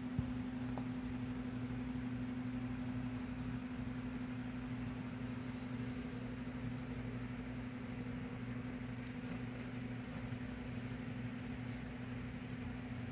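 A steady low electrical hum from an appliance running in the room, with one sharp click just after the start and a few faint light taps from a kitten batting a plastic ball toy.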